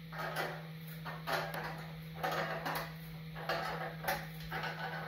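A 15 mm ratchet tightening the clamp bolt that joins a motorcycle's muffler to its tailpipe: about eight short rasping strokes, each with fast clicks, at an uneven pace of one every half second to a second.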